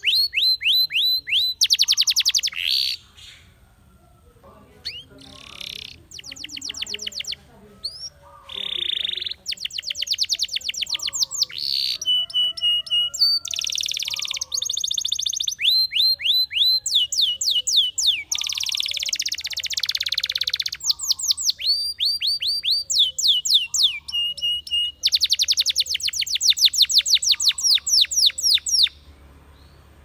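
Spanish Timbrado canary singing long phrases of rapid trills and rolls, each made of fast repeated falling notes, broken by a few short pauses. The song stops near the end.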